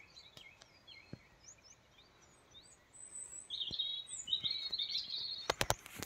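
Wild birds singing and chirping, sparse at first and busier and louder from about halfway through. A few sharp clicks near the end.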